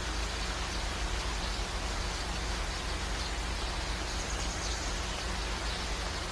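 Steady, even background hiss with no distinct sounds standing out.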